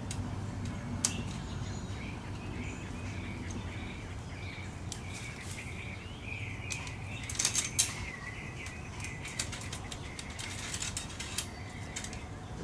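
A raccoon shifting inside a wire-mesh live trap on dry leaves: scattered light clicks, rattles and rustles, thickest in the second half with a cluster of louder clicks about seven to eight seconds in. Thin high chirping runs underneath.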